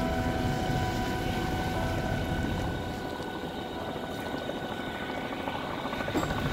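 A helicopter flying, its rotor and engine drone over the steady rush of water and wind around a moving sailboat.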